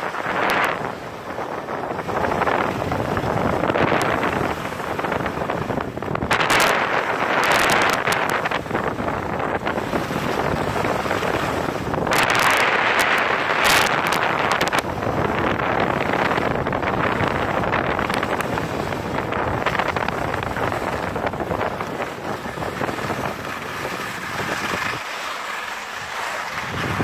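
Wind rushing over the camera microphone during a downhill ski run, with skis hissing and scraping over groomed snow in louder surges through the turns, easing off near the end.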